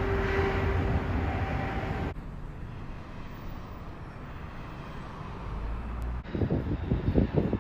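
Vehicle noise: a vehicle's engine running with a steady tone over a noisy hiss. About two seconds in this cuts abruptly to a quieter low rumble, and about six seconds in to irregular low thumps.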